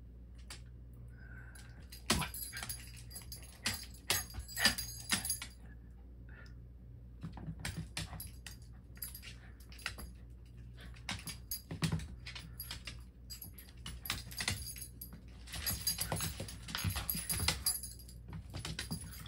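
Two small dogs, one a puppy, playing on a hardwood floor: metal collar tags jingling and claws clicking and scrabbling in irregular bursts as they tussle.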